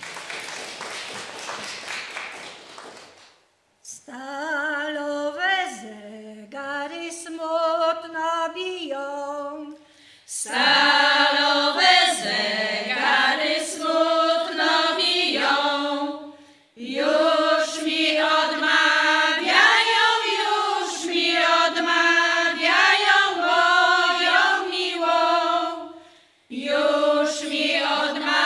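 Women's folk choir singing unaccompanied in Polish. A few seconds of noise come first; then a single voice starts the song alone, and after about ten seconds the whole group joins in, louder, singing long phrases with short breaks between them.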